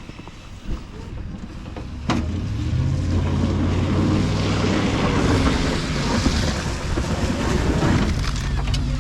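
Snowplow truck's engine pulling under load, joined by a steady rushing noise of the blade pushing snow. A sharp click comes about two seconds in, and the engine and rushing rise right after it.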